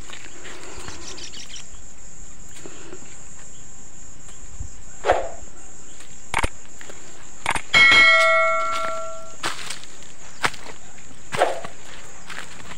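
Steady high-pitched insect drone, like crickets, with scattered footsteps and scuffs of rubber slippers on stony soil. About eight seconds in, a single bell-like ring sounds and fades over a second or so.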